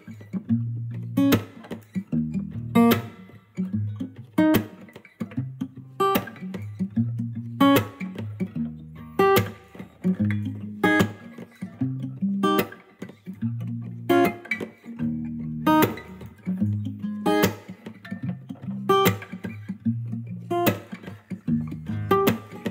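Background music: plucked guitar over a bass line with a steady beat.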